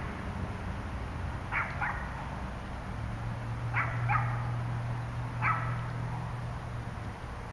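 A dog barking: five short barks, mostly in pairs. A steady low hum runs beneath and gets stronger about three seconds in.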